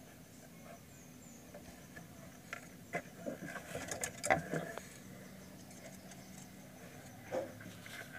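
Rustling and a few light knocks as a hand moves through the fur lining of a rabbit nest and handles the phone, loudest about four seconds in, over a faint steady low hum.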